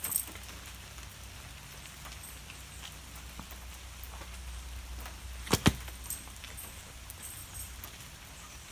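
Light rain falling steadily on a wet paved driveway, over a low rumble, with a sharp double click about halfway through.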